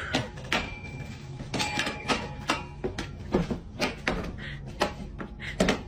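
A metal wire rack rattling and clanking as a dog pulls it along a wooden fence, in a quick uneven run of sharp knocks.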